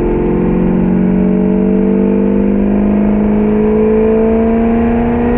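Chrysler 440 big-block V8 of a Jensen Interceptor accelerating hard under heavy throttle, its pitch rising steadily as the revs climb, heard from inside the cabin.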